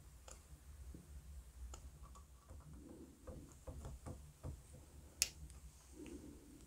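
Faint clicks and taps from handling a small wooden part, a craft knife and a sheet of sandpaper on a cutting mat. A run of quick light ticks comes in the middle, and one sharper click comes about five seconds in.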